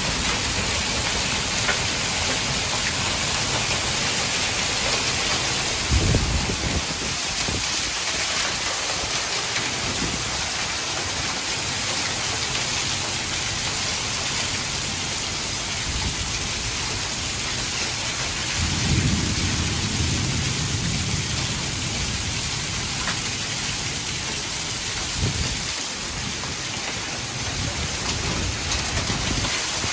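Hail and heavy rain pelting a lawn, pavement and parked cars: a dense, steady hiss. Low rumbles rise through it briefly about six seconds in and again for a couple of seconds about two-thirds of the way through.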